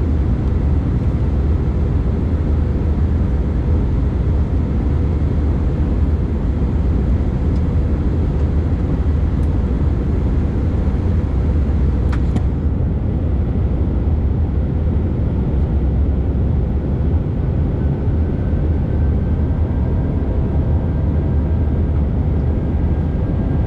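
Steady drone of an Airbus A319's engines and airflow heard inside the cabin during the climb, heaviest in the low rumble, with a brief click about halfway through.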